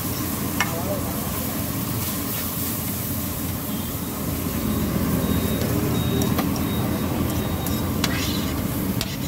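A metal ladle scraping and stirring chole on a large flat griddle, with a few short clicks of metal on metal, over a steady rumble of street traffic and background voices.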